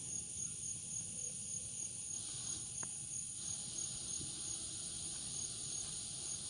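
Steady chorus of crickets and other insects, with a high pulsing trill that repeats evenly; a single faint click about three seconds in.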